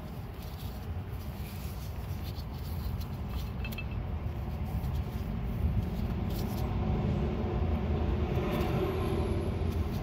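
A steady low background rumble that swells in the second half. Over it come scattered faint clicks and taps as gloved hands fit the plastic ABS wheel-speed sensor and its cable.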